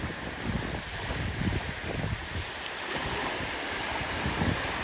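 Wind buffeting the microphone in low gusts over the wash of small waves in shallow seawater.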